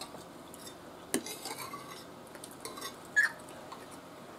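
Metal knives and forks clinking and scraping on ceramic dinner plates as food is cut, with a sharp clink about a second in and a short ringing clink about three seconds in.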